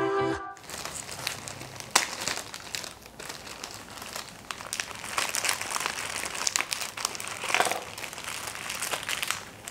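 Plastic packaging crinkling and rustling as items are handled and unwrapped, in many small irregular crackles. A short bit of guitar music ends about half a second in.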